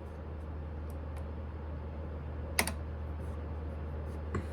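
Smithy lathe running with a steady low hum, with scattered light clicks and a sharper click about two and a half seconds in and another near the end.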